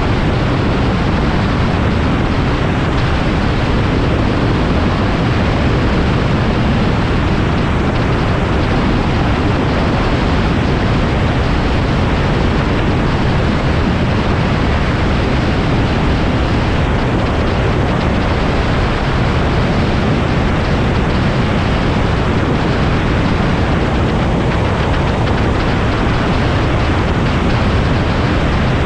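Microlight aircraft in flight: a loud, steady rush of wind and engine noise, with no change in pitch or level.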